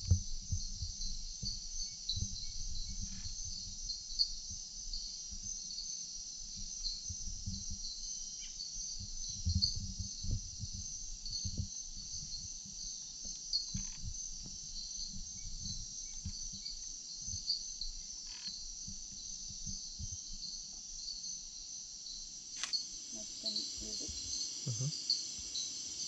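Insect chorus of the rainforest at night: a steady, high-pitched, pulsing shrill from many insects. Irregular low thumps and rumbles are heard under it.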